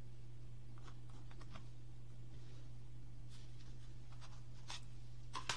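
Gel pen writing on paper through the slot of a plastic signature template: faint scratchy strokes over a steady low hum, with two short clicks near the end.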